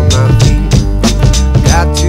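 Background music: a song with a steady drum beat and bass.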